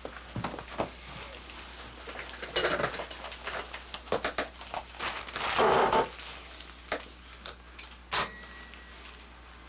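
Handling noise: scattered clicks and knocks, with two longer rustles about a quarter and about halfway through, as a man settles at a studio mixing desk and handles a pair of headphones. A low steady hum runs underneath.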